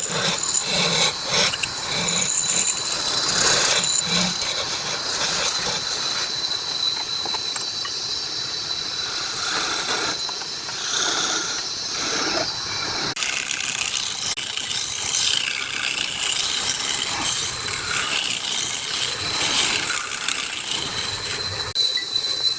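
Wood lathe running while a turning tool cuts the spinning wood: a steady high whine with scraping and squealing from the cut. The sound changes abruptly about halfway through.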